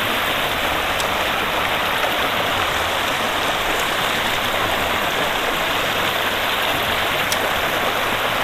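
Water of a small river flowing: a steady, even rushing with no change.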